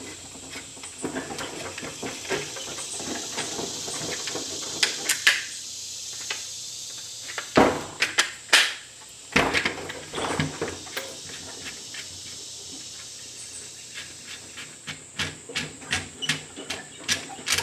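Metal gun parts being handled and fitted: scattered knocks and clunks, then a run of quick, evenly spaced clicks near the end as the end cap is screwed down onto the gun. A steady high hiss sits underneath.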